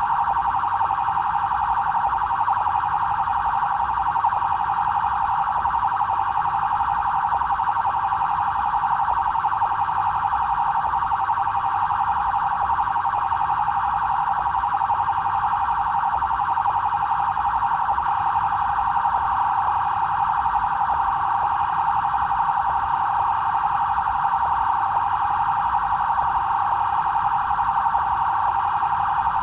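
BAEP police car's electronic siren sounding continuously. Its pitch stays in a narrow band without slow rises and falls, at an even loudness.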